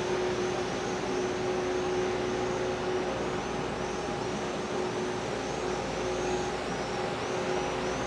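RENFE class 269 electric locomotive hauling a passenger train as it approaches, running with a steady hum and a few held tones over an even rumble, with no sudden change.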